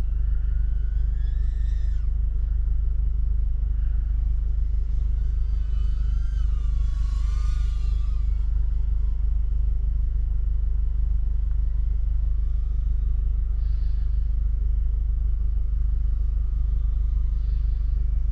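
Steady deep rumble of strong wind buffeting the microphone, with a faint high motor whine from the FPV drone rising and falling twice, near the start and again around six to eight seconds in.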